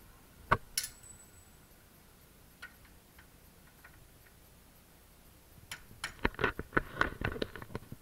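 Metal clicks and clinks of a screwdriver and small lock parts against a mortise lock's faceplate: a sharp click and a short metallic ring about half a second in, a few faint ticks, then a quick flurry of rattling clicks near the end.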